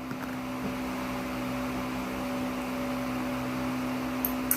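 Steady mechanical hum of a running household appliance or fan, holding one even pitch, with a couple of faint clicks near the end.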